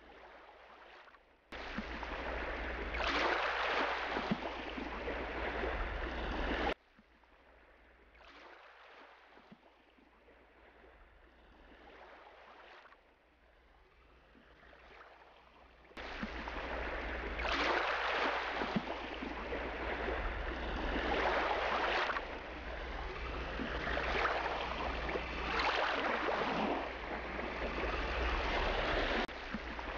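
Rushing water, with swells every couple of seconds like waves washing. It cuts in sharply about a second and a half in, drops to faint a few seconds later, and comes back strongly about halfway through, with a low hum beneath it.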